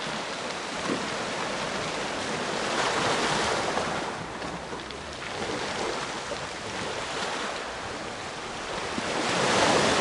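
Waves of a rough sea washing against rocks, swelling louder about three seconds in and again near the end.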